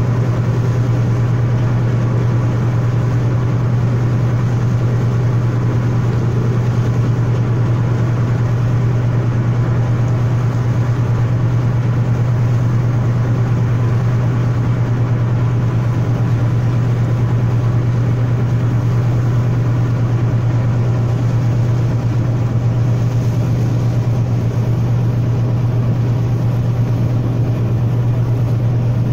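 Ship's engine running with a steady low hum that does not change.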